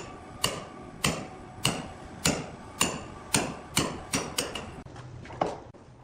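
Hammer blows, about a dozen at roughly two a second, each with a short metallic ring. The blows quicken toward the end, and one final blow lands after a short pause.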